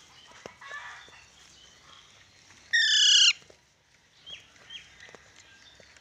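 Alexandrine parakeet giving one loud, harsh squawk about three seconds in, lasting about half a second and falling slightly in pitch. A couple of faint short chirps follow.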